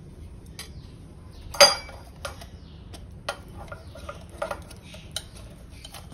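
Light metallic clinks and taps of a brass sev-press cylinder being handled and oiled with a metal-handled silicone brush, with one louder clank about a second and a half in.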